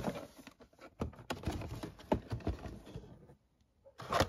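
Clear plastic blister shell of an action figure being slid out of its cardboard box: irregular crinkles, clicks and scrapes of plastic against card, with a short pause about three seconds in and a few more clicks near the end.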